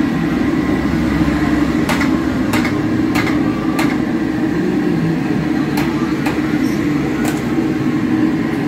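Metal wire skimmer tapped against the rim of a deep-fry pan to shake off oil from freshly fried ta'meya: four sharp taps in quick succession about two seconds in, then a few more later, over a steady low rumble.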